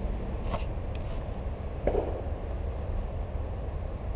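Steady low rumble of wind and handling noise on a body-worn action camera's microphone, with a few faint clicks near the start and a short knock about two seconds in.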